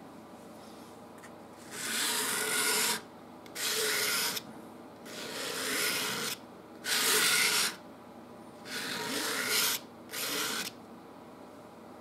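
Metal palette knife scraping oil paint across a stretched canvas in six strokes of about a second each, with short pauses between them.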